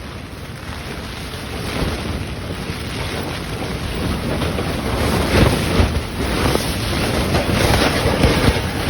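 Thunderstorm wind gusting hard, with gusts of up to about 40 mph buffeting the microphone; it builds over the first few seconds, then surges in strong gusts about halfway through and again near the end.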